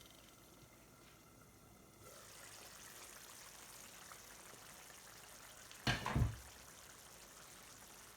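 Curry simmering in the pan, a faint steady sizzle that grows a little louder about two seconds in. About six seconds in comes one brief loud knock, with a second close behind it.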